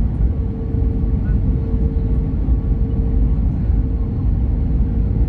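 Cabin noise inside an Airbus A321neo airliner on approach: the steady low rumble of engines and airflow, with a steady hum on one pitch running through it.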